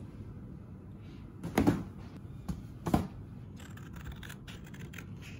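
Stiff paper card being handled and cut with scissors: two louder snips about a second and a half apart, then a run of light clicks and rustles near the end.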